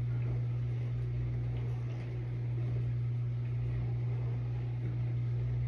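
Steady low hum of a kitchen vent fan running above the stove.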